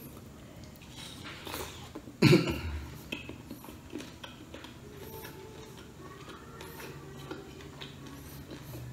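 Quiet eating at a table: bamboo skewers clicking against a steel bowl as grilled pork intestine is pulled off them, with one brief, louder sound falling in pitch about two seconds in.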